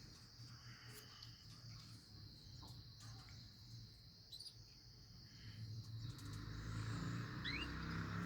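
A steady high-pitched insect-like drone, with a couple of short rising chirps from small cage birds, about four and seven seconds in. A low hum builds from about six seconds in.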